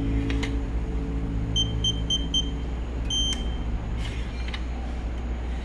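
Keypad of a WT M1602 digital mailbox lock beeping as a code is entered: four short high beeps about a quarter second apart, then one longer beep as the lock unlocks.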